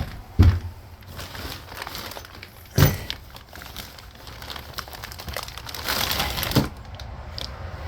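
Crinkling and rustling of the packaging of a new engagement cable as it is handled, with two sharp knocks in the first three seconds and a longer rustle near the end.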